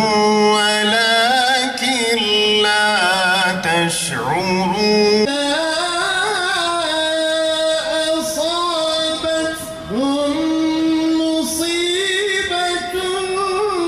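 A man's voice chanting an Arabic Islamic religious recitation unaccompanied, in long, ornamented held notes, amplified through a handheld microphone.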